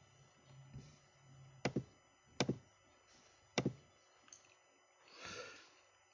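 Three sharp taps, spaced a second or so apart, from the phone or table being handled, then a short breathy exhale near the end, over a faint low hum.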